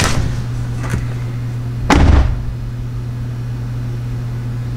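A car door slams shut about two seconds in, after a couple of lighter knocks, over a steady low hum.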